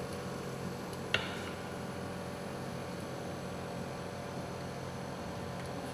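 WDS-720 BGA rework station running with a steady hum, and a single sharp click about a second in.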